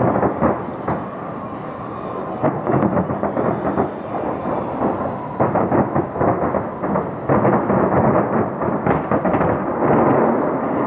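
Fireworks shells bursting in quick succession, their booms overlapping into a continuous rumble that grows denser and louder about halfway through.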